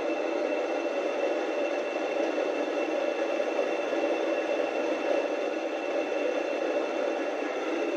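Small domestic electric flour mill (atta chakki) running steadily while grinding wheat into flour: a constant, even whirring with no change.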